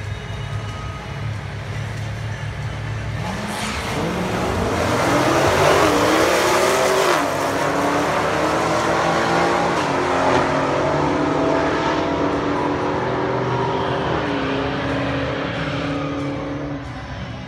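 Two drag cars, a 1971 Plymouth 'Cuda and a 2017 Dodge Challenger SRT Hellcat, idle at the start line, then launch about three seconds in and accelerate hard down the strip. The engine note climbs and drops back at each upshift, three times, and fades as the cars pull away.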